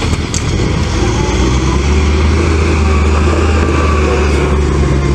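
Heavy loaded truck's diesel engine running, a steady low drone that gets a little louder about a second in.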